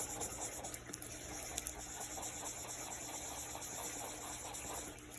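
A drawing tool rubbing quickly back and forth on paper, blending pencil shading so that it spreads out: a steady, faint scratchy rubbing.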